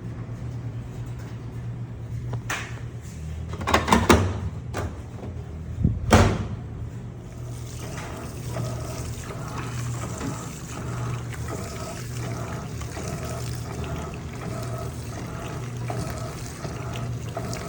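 Electrolux LPE16 washing machine running with water in the tub: a steady motor hum with a few loud sloshing noises between about two and six seconds in, then a regular churning rhythm of one to two beats a second.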